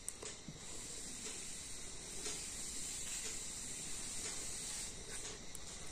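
Faint steady hiss: the recording's background noise in a pause of the voice-over, with no other sound.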